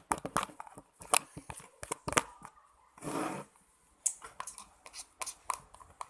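A series of sharp clicks and taps from objects being handled, with a short rustling noise about three seconds in.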